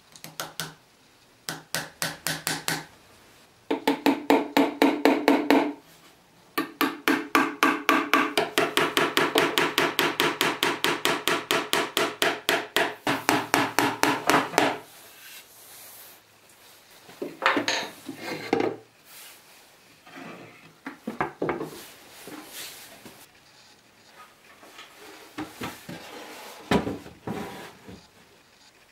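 Rapid hammer taps on a small workpiece on a wooden workbench, about four or five a second, in short runs and then one long run of ringing strikes. After about fifteen seconds the tapping stops, giving way to scattered knocks and handling noises of wood.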